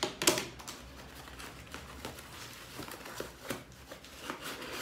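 Cardboard shipping box being opened by hand: a short, loud tearing of tape or cardboard just after the start, then quieter scraping, clicking and rustling of the flaps, with another brief rip near the end.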